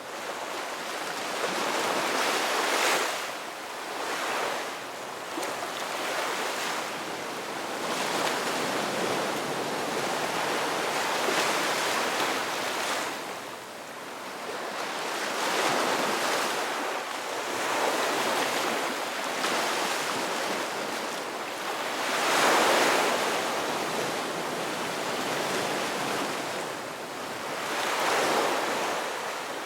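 Ocean surf: a continuous rush of waves breaking and washing in, swelling and easing every few seconds.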